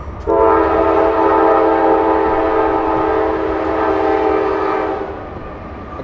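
Train horn blowing one long, steady, loud chord of several notes for about four and a half seconds, starting just after the beginning and cutting off near the end.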